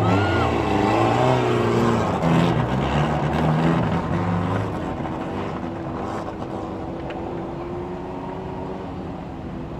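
Several four-cylinder mini stock race car engines running at low speed while the cars roll around before a heat start, their pitches rising and falling. The sound eases to a quieter, steadier drone after about four or five seconds.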